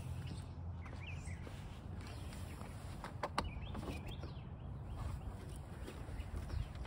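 Birds chirping over a low steady background rumble, with a few sharp clicks about three seconds in from a hard plastic tool case being handled.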